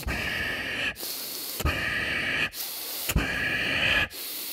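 A man's deep, full chest breaths, in and out one after another, each a loud rushing hiss close on a headset microphone, about six in a row. This is the forced full inhale and full exhale of a deep-breathing yoga exercise.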